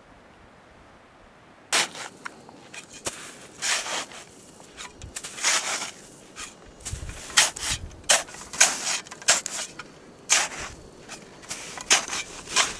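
Footsteps crunching in firm snow, one step about every second, starting a moment in after a short quiet spell.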